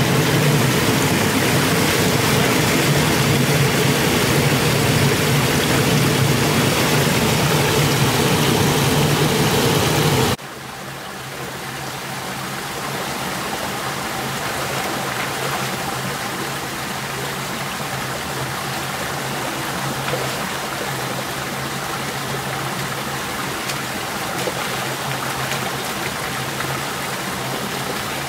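A small waterfall pouring steadily over rocks into a stream. About ten seconds in it cuts suddenly to the quieter, steady rush of the stream flowing in a shallow pool.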